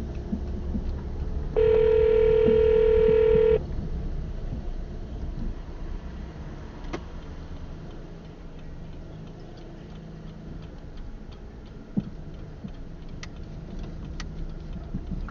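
A single loud steady tone, a horn- or beep-like sound, held for about two seconds a couple of seconds in, over a continuous low rumble.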